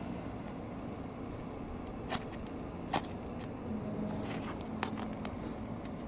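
Ferrocerium fire-starter rod, a 4 mm Seria 100-yen rod, struck with a metal scraper: two sharp scrapes about a second apart, then a few fainter ones. The sparks land on char cloth, which catches as glowing embers.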